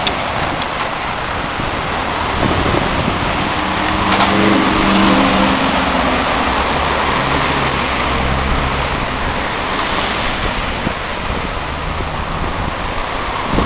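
Wind rushing over the microphone on a moving bicycle, a loud steady roar. About four to six seconds in, a passing motor vehicle's engine hum rises and fades under it.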